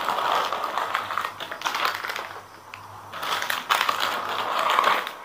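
Plastic snack wrappers rustling and crinkling as packets are rummaged out of a bag and put down on a table, in two long spells with a short lull in between.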